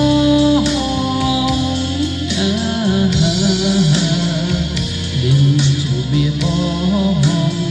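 Instrumental passage of a Khmer song between sung lines: a wavering melody over a steady beat.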